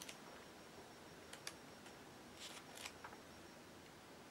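Near silence with a few faint, short paper rustles and clicks from a magazine page being turned.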